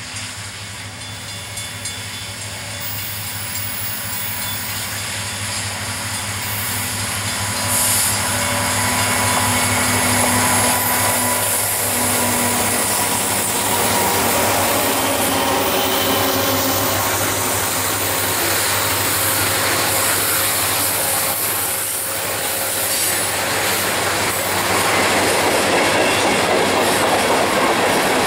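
CN freight train passing close by. The diesel locomotives' engines hum as they approach, then the long string of hopper and tank cars rolls past with its wheels clattering on the rails. The sound grows louder over the first eight seconds and stays loud.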